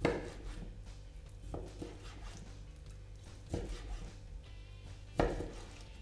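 Chef's knife slicing raw chicken breast into thin strips on a wooden cutting board, the blade knocking the board four times, roughly every one and a half to two seconds. Quiet background music plays underneath.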